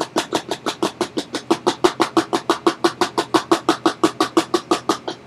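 Rapid, even tapping on a plastic funnel seated in a PVC pipe, about eight taps a second, knocking baking soda down into the cannon's chamber.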